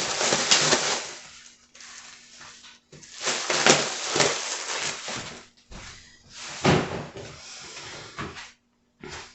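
Kitchen handling noises: a run of knocks and clatters, with three louder bangs spread through it, over a faint steady hum.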